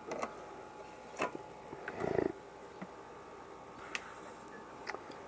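A few faint, scattered clicks and light taps of small items and tools being handled on a jeweler's workbench, with a brief louder rustle about two seconds in.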